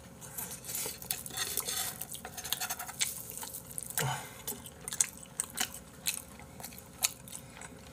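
Close-up chewing of grilled chicken skewer, with wooden chopsticks clicking and scraping as the meat is stripped off the skewer over a plate; many short sharp clicks.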